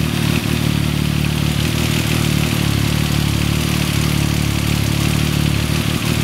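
A 2014 Yamaha MT-09's inline three-cylinder engine idling steadily, with the cam chain noise typical of this model's automatic cam chain tensioner failing to keep the chain tight.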